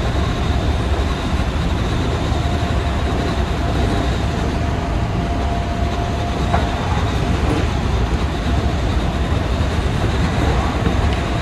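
Odakyu 8000 series electric train running, heard from inside the driver's cab: a steady rumble of wheels and running gear on the track. A thin steady whine holds for a few seconds mid-way and ends with a sharp click.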